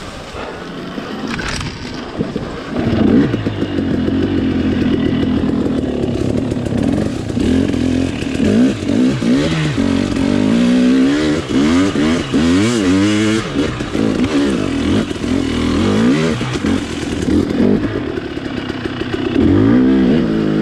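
Off-road dirt bike engine under throttle, revving up and down over and over, its pitch rising and falling every second or two. It is quieter at first and gets louder about three seconds in.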